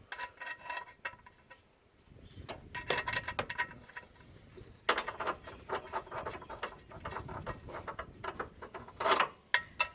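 Sump plug being screwed back into the oil pan with a spanner: a run of small metallic clicks, scrapes and clinks, some with a brief ring, coming in irregular clusters.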